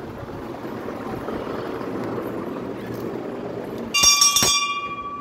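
Hanging brass temple bell rung by hand with a few quick strikes about four seconds in, then ringing on with a clear, high, steady tone. Before that, only a steady background rumble.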